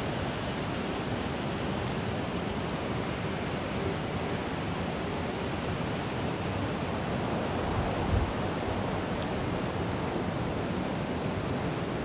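Steady, even rushing noise of outdoor ambience, with one brief low thump about eight seconds in.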